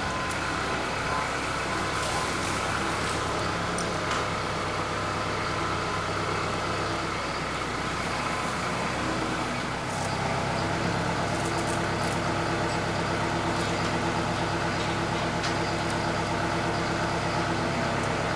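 Tractor engine running steadily while its front-end loader bucket is raised; the engine note changes about ten seconds in as the loader is worked.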